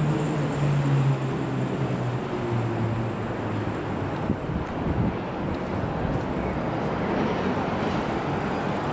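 Street traffic: a vehicle engine's low hum that falls slowly in pitch over the first few seconds, over steady road noise.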